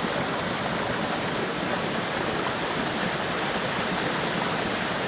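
Waterfall pouring down into a small pond: a steady, unbroken rush of falling water.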